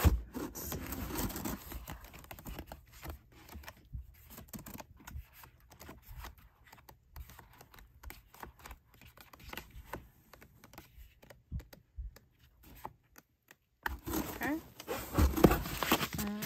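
Paper and plastic craft packaging being handled: scattered rustling, crinkling and small taps, with a moment of near silence about three-quarters of the way through.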